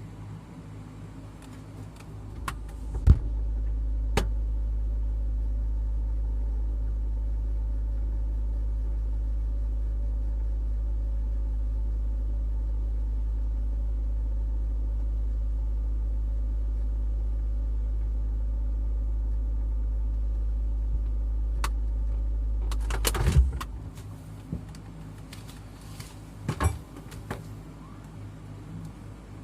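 Refrigerator door shut with a knock about three seconds in, then a steady low hum heard from inside the closed fridge for about twenty seconds, ending with a clatter as the door is opened again.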